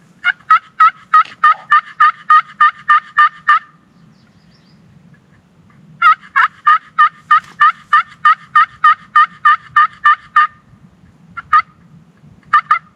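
A series of loud wild turkey calls: two long runs of evenly spaced notes, about four a second, with a pause between them, then a few single notes near the end.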